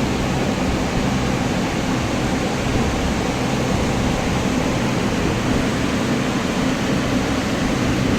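Engine idling steadily with a knocking noise from inside the engine, which the mechanic calls engine knock.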